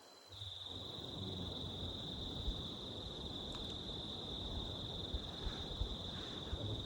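Steady, high-pitched chorus of night insects, crickets, over a low rumbling noise that comes in just after the start, with a few faint ticks.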